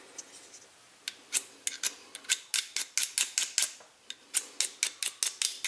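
Steel striker rasping quickly down a ferrocerium (ferro) rod, short scrapes about four a second starting just over a second in, throwing sparks at a pile of magnesium shavings.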